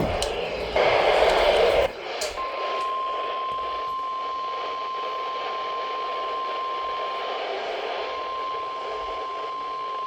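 Weather radio sounding its 1050 Hz warning alarm tone: a single steady alert tone that starts about two seconds in and holds over the receiver's hiss, after a short burst of noise about a second in. It signals that a warning, here a special marine warning, is about to be read.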